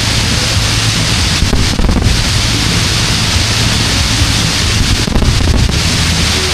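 Dense fireworks barrage: a continuous loud crackling and rumbling wash with no single boom standing out.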